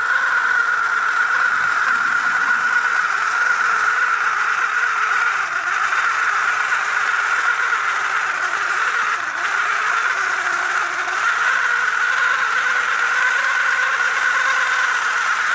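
Small brushless electric motor and its reduction gearing in a 3D-printed RC half-track model, whining steadily as the model drives on its tracks.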